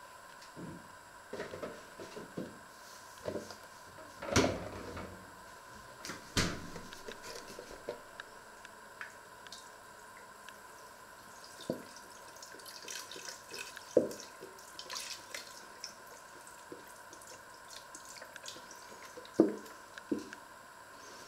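Red wine from a carton poured and dripping into a steel cooking pot, with scattered knocks of the carton against the pot, loudest about four and six seconds in, near the middle and near the end, over a steady faint hum.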